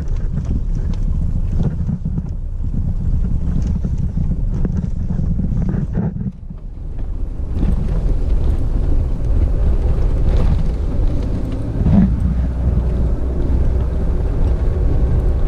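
Vehicle driving over a rough gravel and rock road: a steady low engine and road rumble with wind buffeting the microphone and small knocks and rattles from the stones. There is a brief drop about six seconds in, and after that the noise is louder and hissier.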